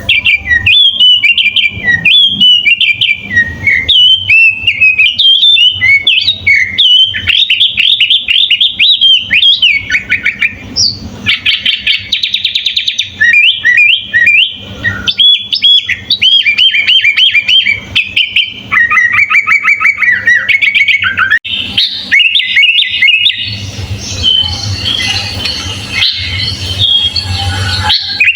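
Sooty-headed bulbul (kutilang) singing a long, varied run of quick whistled phrases, with denser rapid stretches about halfway through and near the end.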